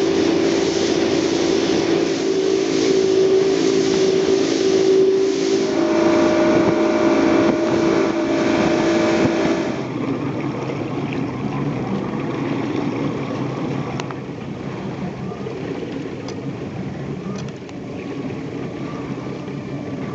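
A small boat's motor running under way, with wind and water hiss. About halfway through, the engine note drops suddenly to a lower, quieter run.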